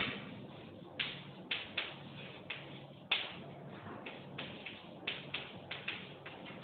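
Chalk tapping and scratching on a blackboard as a line of words is written by hand: a quick, irregular run of sharp taps, two or three a second, each with a short scratchy tail, over a low steady hum.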